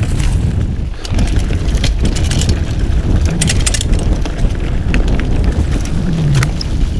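Mountain bike ridden at speed along a dirt forest trail: a steady rumble of tyres and wind on the camera microphone, with many quick rattles and clicks from the bike over the bumps.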